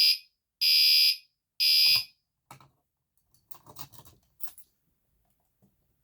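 Gentex Commander 3 fire alarm horn sounding three short, high-pitched blasts of about half a second each, with half-second gaps: a temporal-three evacuation pattern, the first blast already going. It then stops, leaving only faint clicks of handling.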